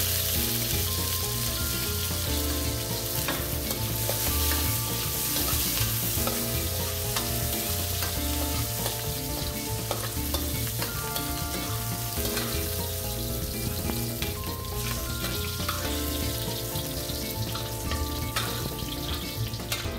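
Diced bell pepper frying in hot oil in a wok: a steady sizzle, with a spoon stirring the pieces and clicking against the pan.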